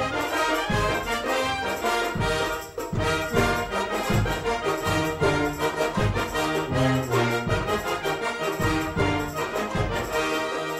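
A wind orchestra (concert band) plays a Renaissance dance arrangement, with brass prominent over a steady beat in the low end.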